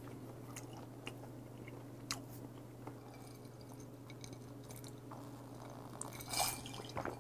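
Faint chewing with small wet mouth clicks, then quiet gulping as a glass of iced whisky highball is drunk from, over a faint steady hum.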